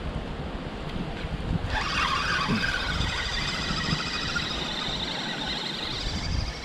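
Wind buffeting the microphone, with a higher, fairly steady sound coming in suddenly about two seconds in and fading near the end.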